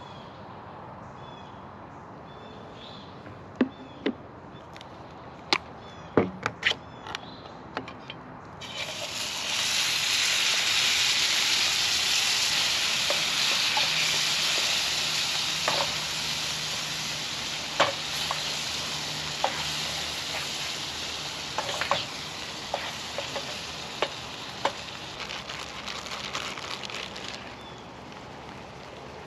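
A few utensil knocks against a frying pan, then about nine seconds in a sudden loud sizzle as canned beans hit the hot pan, the hiss slowly dying down while a utensil clinks and scrapes in the pan as they are stirred.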